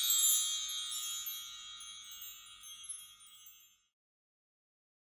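Cartoon 'blinking' sparkle sound effect: a cluster of high, chime-like tinkling notes fading away and dying out a little under four seconds in.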